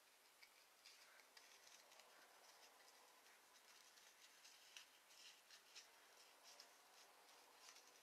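Near silence with faint, scattered light rustles and ticks: a ribbon and paper cardstock being handled as the ribbon ends are threaded through a loop.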